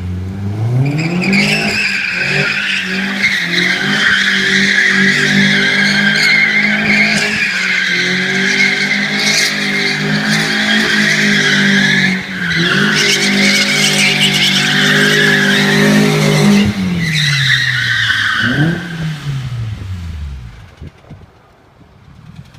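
Nissan 240's engine revved high and held there while the rear tyres squeal in a long skid, with a brief dip in revs partway through. Near the end the revs fall away, the squeal stops and the sound fades out.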